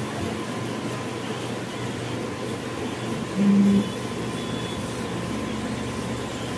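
Large-format flex banner printer running, its print-head carriage sweeping back and forth over the vinyl with a steady mechanical whirr. A short, loud, low buzz sounds once about three and a half seconds in.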